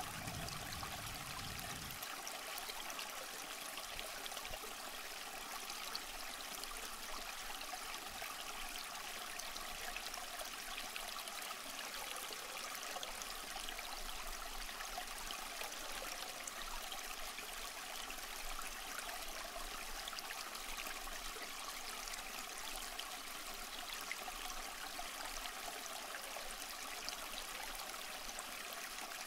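Flowing stream water: a steady, even rush and trickle with no pauses.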